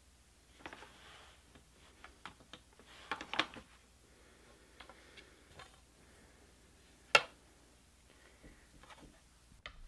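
Scattered light clicks and taps from handling a wooden shuttle and tools on a rigid heddle loom, with soft rustles of warp threads and yarn. One sharp wooden knock about seven seconds in is the loudest sound.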